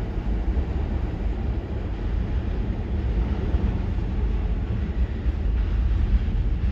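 New York City subway train running, a steady low rumble of wheels and motors that grows slightly louder toward the end.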